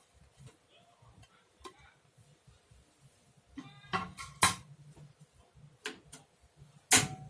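Scattered clinks and knocks of a utensil against a pot as sliced palm sugar goes into the boiling ginger water. There are a few louder strikes around four and six seconds in, and the loudest comes near the end.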